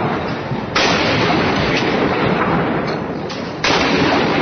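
Battle sound effect of artillery fire: a dense, continuous rumble of gunfire with two sudden loud blasts, one a little under a second in and one near the end, each trailing off.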